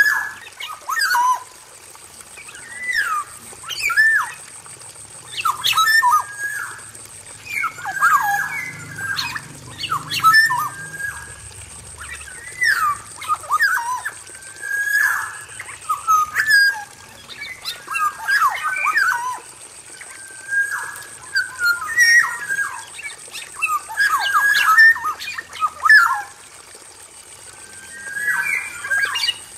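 Male black-naped oriole singing a varied song: short fluty whistles and slurred, gliding calls in quick phrases, repeated every second or two. A thin steady high tone runs underneath.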